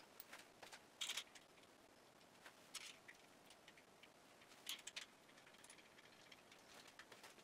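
Faint, scattered clicks and light metal taps from hand work on the brake cap at the back of a Demag P hoist's main motor, with a few sharper clicks about a second in, near three seconds and near five seconds.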